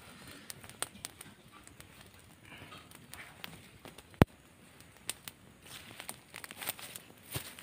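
Small fire of dry twigs and grass crackling with scattered pops, and one sharp, loud snap about four seconds in.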